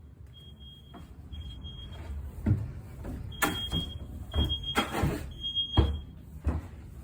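Smoke alarm sounding its test alarm: a single high beep repeated in groups of three with a longer pause between groups, the standard three-beep fire-alarm pattern. Several loud thumps and knocks sound over it from about two and a half seconds in.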